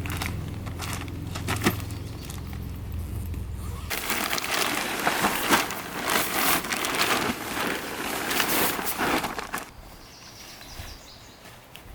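Dry wood crunching and snapping in a dense run of crackles for about six seconds, beginning just as a low steady hum cuts off about four seconds in.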